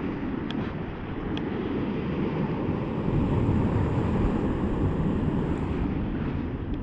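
Wind rumbling on the microphone over ocean surf, swelling to its loudest around the middle and easing off again, with two faint ticks near the start.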